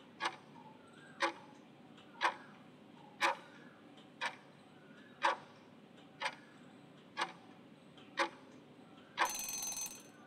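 Countdown-timer sound effect: a clock ticks once a second, nine ticks in all, then a short alarm sounds for about a second as the time runs out.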